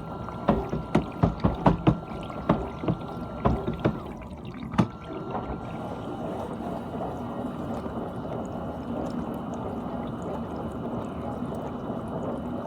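Dishwasher running with water spraying inside it. Rapid knocks and clatters fill the first few seconds over a thin steady whine, then give way to a steady rush of water.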